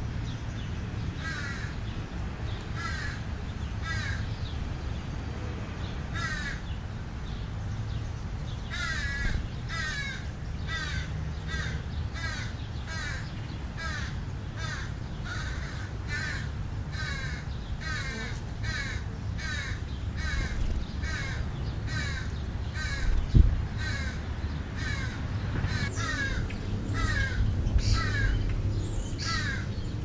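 Crow cawing over and over in a long series of short, harsh, falling calls, about one or two a second. A single thump sounds about three-quarters of the way through.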